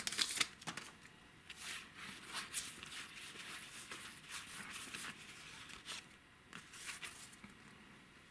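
Weiß Schwarz booster pack wrapper torn and crinkled in the first second, then trading cards rustling and sliding against each other as they are fanned and sorted by hand.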